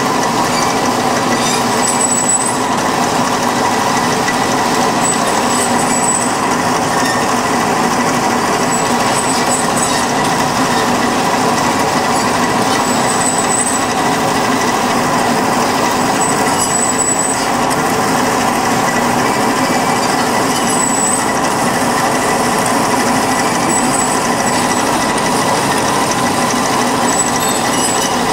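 Kysor Johnson (Amada) HA250 automatic horizontal band saw running steadily in cut-feed mode, its blade sawing through the stock, with a faint high squeak every few seconds.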